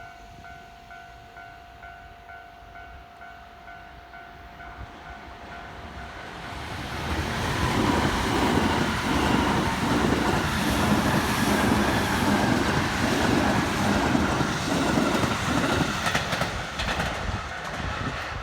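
A level-crossing warning bell rings in a steady repeated tone. Then a JR West 207 series electric train comes through the crossing, louder from about seven seconds in, its wheels clattering rhythmically over the rail joints until near the end.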